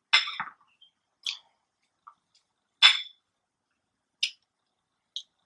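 A person eating close to the microphone: a handful of short, sharp wet mouth clicks and smacks while chewing, irregular and roughly a second apart.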